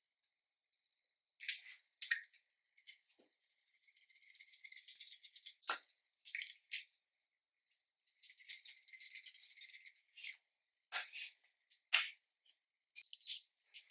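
Slime being squeezed and stretched by hand: short sticky squelches, and twice a run of about two seconds of rapid crackling and popping as the slime is pulled and pressed.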